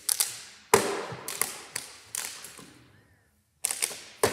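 A plastic water bottle being flipped onto a wooden table: a run of sharp knocks and clatters as it lands and topples, with a brief hush about three seconds in.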